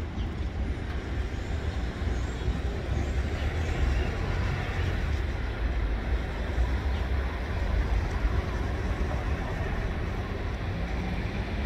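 TasRail diesel-electric freight locomotive hauling an empty cement train past, its engine giving a steady low rumble under the noise of the wagons rolling along the rails.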